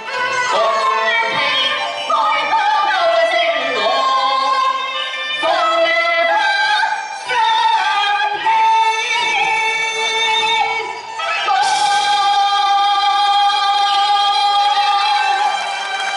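Cantonese opera singing with music, the voice sliding between pitches in ornamented phrases and then holding one long note near the end.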